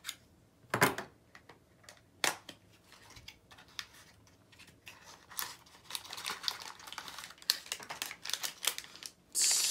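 A small cardboard blind box and its pin packaging being handled and opened: a few sharp clicks and taps, then a run of rapid crinkling and tearing, with a louder rustling tear near the end.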